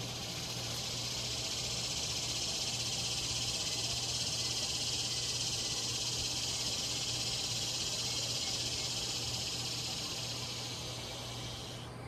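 Cicada buzzing: a steady, high-pitched drone with a fine rapid flutter that swells over the first couple of seconds and stops abruptly just before the end.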